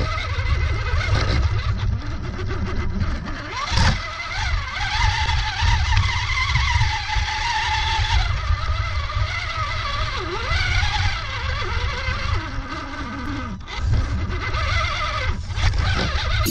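Electric drive motor and gears of a toy RC rock crawler whining, the pitch rising and falling with the throttle as it climbs, over a heavy low rumble, with a short knock about four seconds in.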